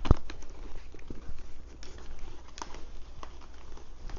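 Scattered knocks, clicks and rubbing from a carbon-fibre motorcycle helmet being handled and pulled on. The sharpest knock comes right at the start.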